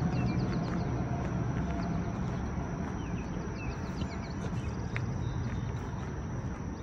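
Footsteps of someone walking outdoors, over a steady low rumble, with faint short bird chirps and a few scattered clicks.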